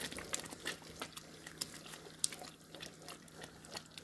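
Wooden spoon stirring a thick tomato stew in a pot: wet sloshing and squelching of the sauce with irregular light taps and scrapes of the spoon against the pot, one sharper tap about two seconds in.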